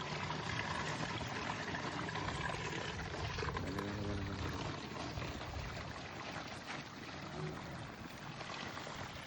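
Water poured steadily from a bucket into a tree-watering bag, a continuous rushing splash that eases a little in the second half. A faint voice is heard briefly near the middle.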